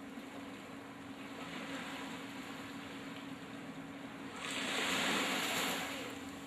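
Small waves lapping on a sandy beach, a steady wash with one wave breaking and washing up louder about four and a half seconds in, then fading over a second or so.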